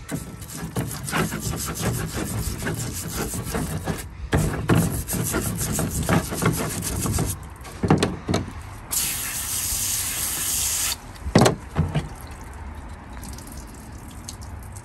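Wire brush scrubbing scaly rust off a cast iron cornbread pan in quick, rough strokes. After that come a few knocks and a steady hiss lasting about two seconds.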